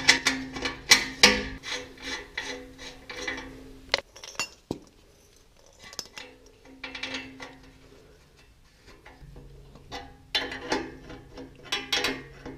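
Metal tool clicks and clinks as a new wideband oxygen sensor is fitted into its exhaust bung and tightened with a wrench. Quick runs of sharp clicks come first, then a sparser stretch, then another run near the end.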